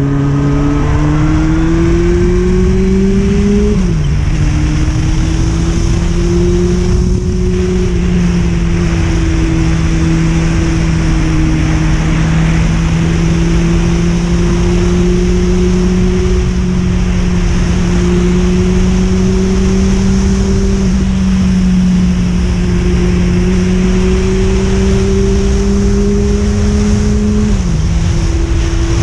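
Yamaha FZS1000's inline-four engine running under way, with wind noise over it. The engine note climbs, drops sharply with an upshift about four seconds in, holds nearly steady while cruising, then rises slowly and drops again with another shift near the end.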